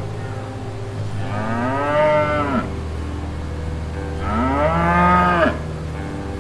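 Cow mooing: two calls, each about a second and a half long, rising in pitch and then breaking off sharply, over a steady low hum.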